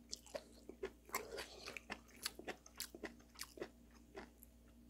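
Faint eating sounds: a person chewing beef tripe, with irregular light clicks a few times a second.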